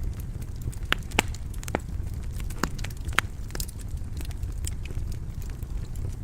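Wood fire crackling in a fireplace: scattered sharp pops over a steady low rumble of the flames.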